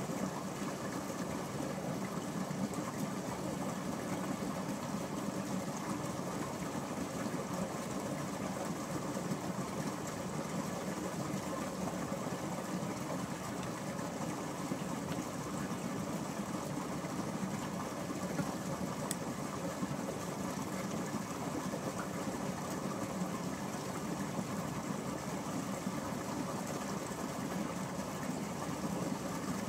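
An engine running steadily, a constant drone that does not change.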